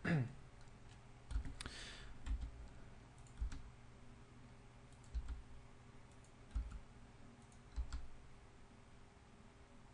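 Faint, sparse clicks and taps of a computer keyboard and mouse, about seven spread over several seconds.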